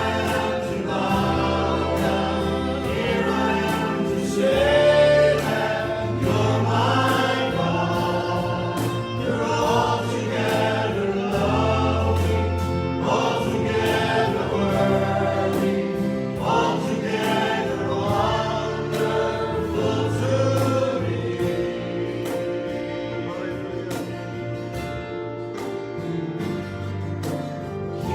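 Church worship song: voices singing together over a band with sustained bass notes and a steady beat.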